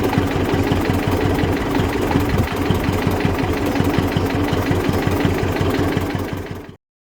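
1948 Zetor 15's single-cylinder diesel engine running with a steady, even beat, fading out quickly near the end.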